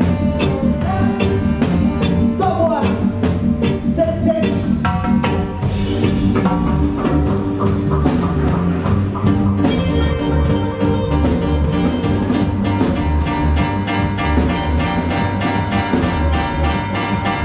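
Live reggae band playing: a heavy bass line and steady drum beat, with keyboards and saxophone over it.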